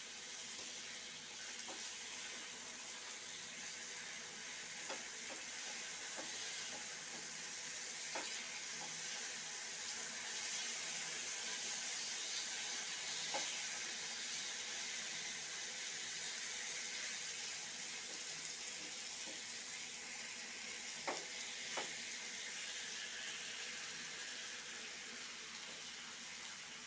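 Besan-coated potato slices shallow-frying in oil with a steady sizzle. A few light taps come from the wooden spatula against the pan as the slices are turned over.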